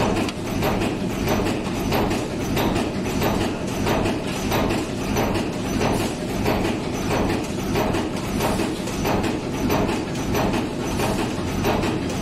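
Cold forging machine making hammer-head T-bolts, running with a steady, evenly repeating clatter of forging strokes.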